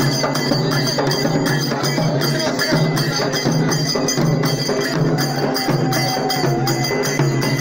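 Several drums beaten with sticks in a fast, continuous rhythm.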